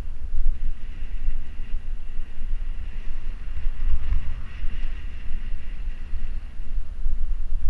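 Wind buffeting the camera's microphone while riding along a road, a heavy, uneven low rumble. An oncoming car passes about four seconds in.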